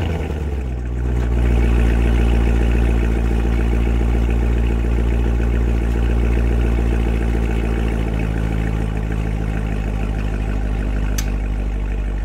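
C7 Corvette's 6.2-litre V8 idling through its exhaust just after its first start following the rebuild, settling into a steady idle within the first couple of seconds.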